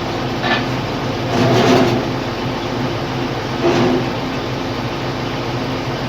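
Lefort hydraulic scrap-metal shear at work after a repair: a steady machine hum with a few louder metallic clanks and scrapes, the longest a little over a second in.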